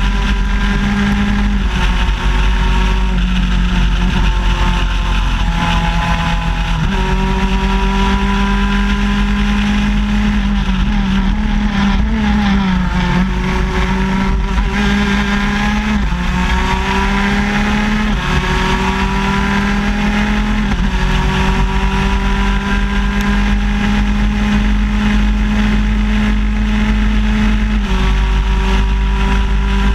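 125cc two-stroke shifter kart engine running at racing speed, heard from on board: its pitch climbs steadily through each gear and drops at every gear change, again and again, with a cluster of downshifts and a wavering note through a corner about halfway through.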